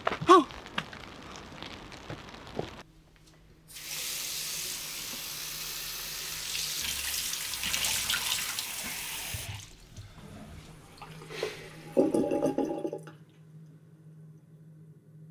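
Water running from a tap into a bathroom sink as a steady hiss for about six seconds, then shut off. A faint low hum runs underneath, and a brief pitched sound comes near the end.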